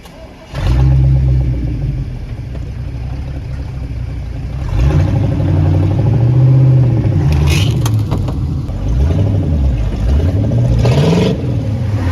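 Car engine revving under load while towing a stuck car out on ice with a strap. It comes in suddenly about half a second in, grows louder about five seconds in, then its pitch rises and falls again and again as the throttle is worked, with two short rushing bursts in the second half.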